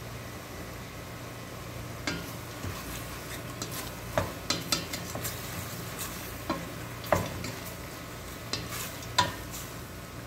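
Wooden spatula stirring beef cubes in a stainless steel pot, knocking and scraping irregularly against the pot from about two seconds in, over the sizzle of the meat browning. A steady low hum runs underneath.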